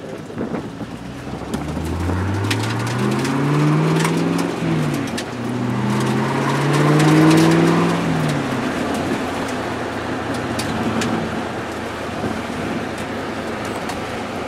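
Pontiac GTO's V8 under hard acceleration, heard from inside the cabin: the engine note climbs, drops at a gear change about four and a half seconds in, climbs again through the next gear, then falls away as the throttle comes off. Steady road and wind noise fills the rest.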